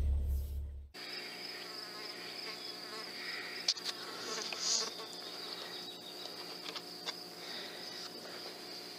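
A low hum cuts off about a second in, leaving a steady, high-pitched drone of summer evening insects with a few faint clicks.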